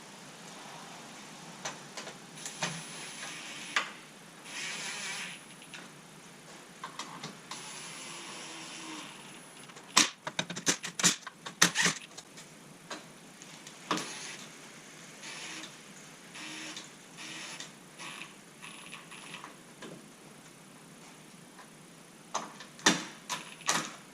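Tools fastening the grille's bolts and screws into the truck's grille support: several short spells of steady driving noise, then a burst of sharp clicks and knocks about ten seconds in and another near the end.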